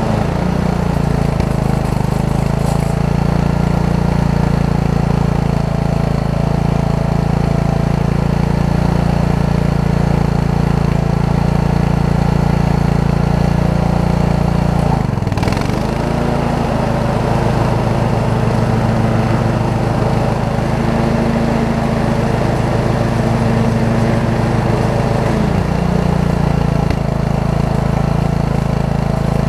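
Riding lawn mower's 15.5 hp Briggs & Stratton engine running steadily. About halfway through, its speed briefly sags and then recovers.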